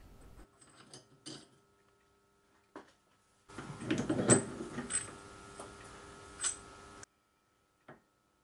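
Scattered metallic clicks and clinks as a steel workpiece is loosened from a four-jaw lathe chuck with the chuck key and lifted out. The busiest cluster comes about halfway through, and a low hum dies away in the first half second.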